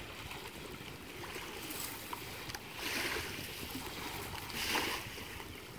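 Shoreline ambience dominated by wind rumbling on the microphone, with brief splashes of shallow water as toddlers wade, about three and nearly five seconds in.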